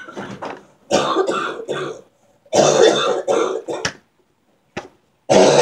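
A girl's voice making coughing, throat-clearing sounds rather than words, in several short bursts: two longer ones, a brief one, and another starting near the end.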